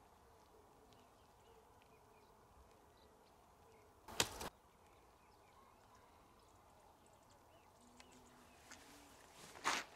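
Faint outdoor ambience with insects buzzing, broken about four seconds in by one short, sharp noise lasting under half a second.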